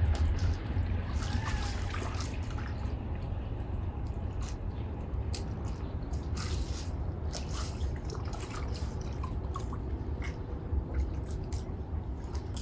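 Water lapping and dripping around a boat hull and bridge pylon, many small irregular splashes and drips over a steady low rumble.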